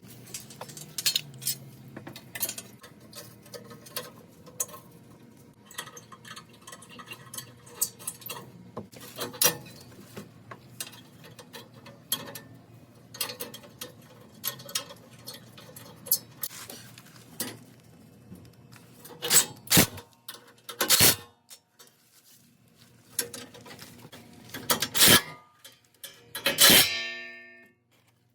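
Metal clinking, clicking and knocking of hand tools and bolts while the brush guard is refitted, with several louder clanks in the last third.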